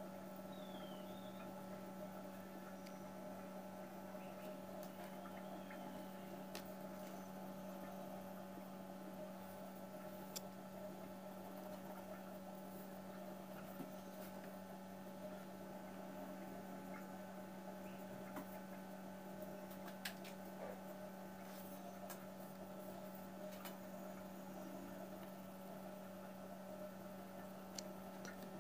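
Steady low electrical hum, under the faint scratching of a graphite pencil shading on paper, with a few light ticks.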